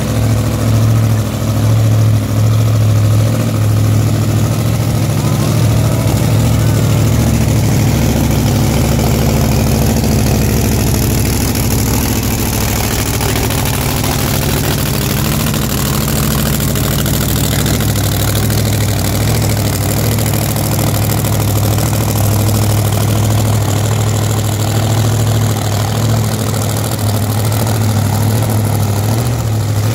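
Big supercharged Opala drag car's engine idling loudly and steadily at an even, low pitch, without revving.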